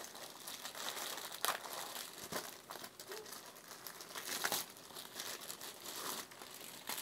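Packaging being handled and crinkled, a steady rustle with a few sharper crackles.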